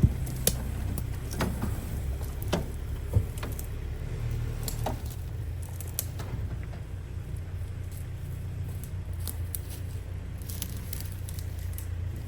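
Excavator's diesel engine running with a steady low drone, with scattered sharp cracks and clicks. The clicks are most frequent in the first few seconds.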